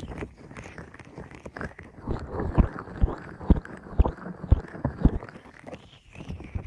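ASMR ear covering with tapping: a muffled rumble of hands pressing over the microphone, with dull taps landing about twice a second through the middle.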